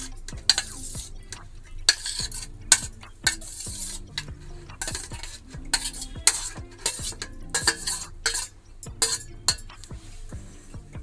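A metal spoon scraping and clinking against stainless steel bowls as wet chopped masala of tomato, onion and herbs is scraped from one bowl into a small steel grinder jar. Irregular scrapes and clinks, many a second.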